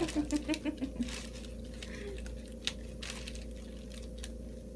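Soft rustling and scattered small clicks of handling and movement, over a steady low electrical hum. A brief murmur of voice comes in the first second.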